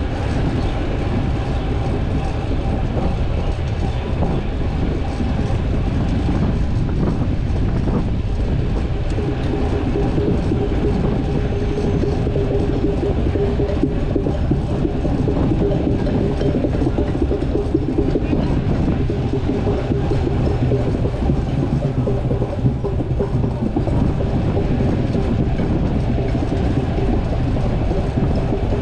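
Steady rumble of a fixed-gear bicycle being ridden on pavement: tyre and road noise mixed with wind on the microphone, with a faint steady hum running through it.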